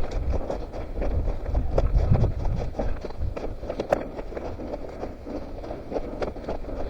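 A runner's footsteps thudding and crunching over a forest floor in an uneven running rhythm, picked up by a head-mounted camera's microphone.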